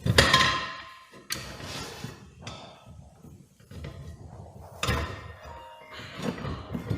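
Metal tire tools and a screwdriver clanking against a lawn mower wheel rim while working the tire bead off, about five sharp knocks with short ringing. A phone ringtone plays along with them.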